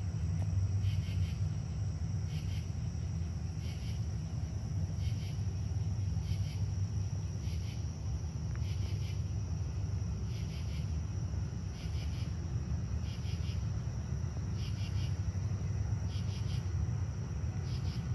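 Insects calling: a steady high trill with a short pulsed chirp repeating about every second and a half, over a low steady rumble.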